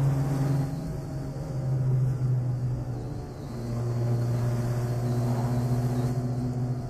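Car engine heard from inside the cabin, running at steady revs with a low hum over road noise. It eases off briefly about a second in and again around three seconds in, then holds steady.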